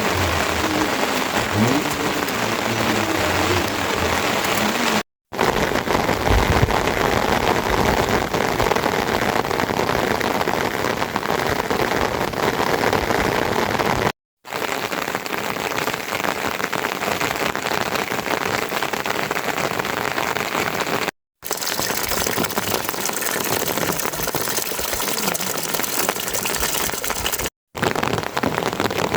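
Steady heavy rain falling, a dense even hiss, broken four times by brief moments of silence.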